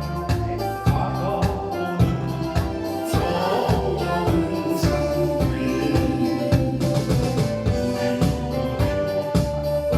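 Upbeat trot song in polka rhythm: band backing with a steady, even beat and sustained keyboard chords, and a wavering lead melody over it in the first half.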